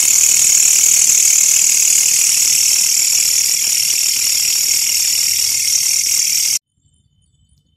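Loud, steady, high-pitched buzzing chorus of night insects in tropical forest, cutting off suddenly about six and a half seconds in.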